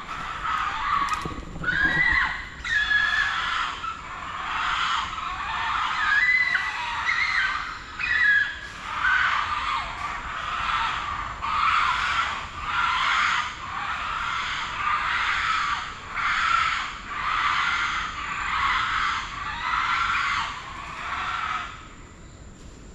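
A group of spider monkeys calling, most likely Geoffroy's spider monkeys, the species found in Costa Rica. They give a long series of high-pitched squealing calls, about one a second and often overlapping, that stops near the end.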